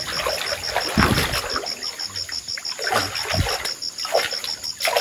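Pond water splashing and dribbling as two people wade and work a hand-held fishing net through it, with heavier sloshes about a second in and again around three and a half seconds.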